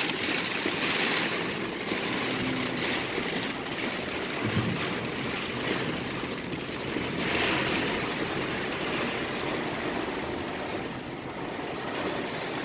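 Heavy rain falling hard on the roof and windows of a car, heard from inside the cabin: a loud, steady rush that swells a little twice.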